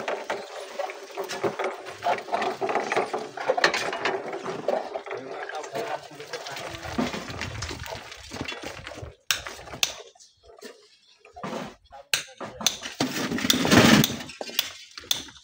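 Hand tools working rocky landslide debris: sharp clinks and knocks of steel hoe and shovel blades striking stones and scraping through gravel, with a longer, louder scrape about 13 seconds in. Men's voices talk under the first half.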